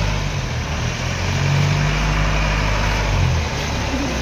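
A motor vehicle's engine running at idle: a low steady hum whose pitch shifts a few times, over a constant background hiss.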